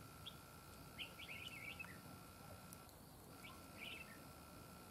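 Red-whiskered bulbuls calling: a few faint bursts of quick, chirpy notes, each under a second long.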